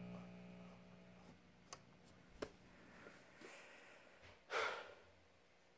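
A low hum fades out in the first second or so, then two light clicks. About four and a half seconds in comes a short, sharp exhale, a sigh.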